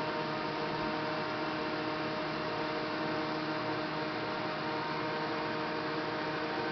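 Steady electrical hum with a layer of hiss, unchanging throughout.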